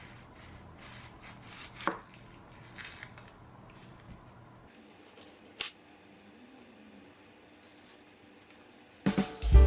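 A few light clicks and knocks of kitchen handling over quiet room tone, the sharpest about two seconds in and again past five seconds. Loud music with guitar and drums starts near the end.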